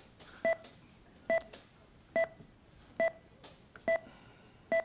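Short electronic beep repeating evenly a little faster than once a second, six times, each beep holding two pitches: the pulse-oximeter tone of the Virtual Anesthesia Machine simulation, beeping with each simulated heartbeat.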